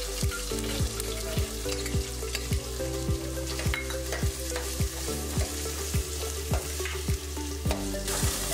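Chopped onions frying in hot oil in a stainless steel pan, sizzling steadily as they are stirred with a steel ladle.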